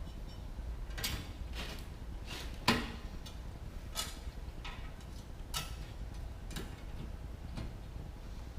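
Stiff 14-gauge solid wire being bent, twisted and tied onto the metal springs of a truck seat frame: irregular light metallic clicks and short scrapes, roughly one every half second to second, the sharpest a little before three seconds in.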